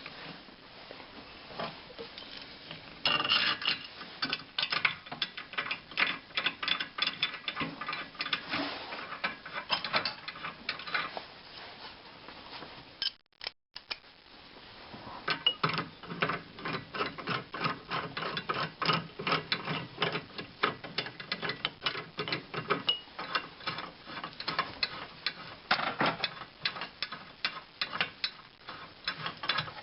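Ratchet wrench clicking rapidly as a nut is run down a threaded stud. It goes in two long spells broken by a brief dropout about halfway.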